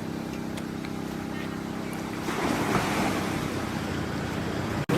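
Sea waves washing onto a beach with wind on the microphone, one wave swelling in a little over two seconds in, over a steady low engine hum. The sound cuts out briefly near the end.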